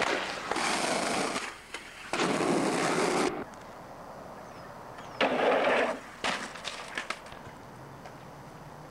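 Skateboard wheels rolling on asphalt in two stretches, then a sudden louder burst about five seconds in and a few sharp board clacks just after it.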